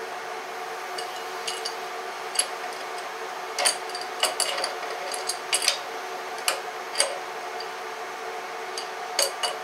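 Scattered light metallic clicks and clinks of hands working at a Kinchrome air compressor's crankcase to get its top off, over a steady hum.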